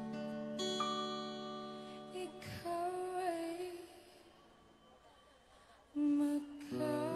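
Live band playing a slow pop ballad: a woman singing over acoustic guitars. The music thins to a near pause in the middle, then her voice comes back in with a loud held note about six seconds in.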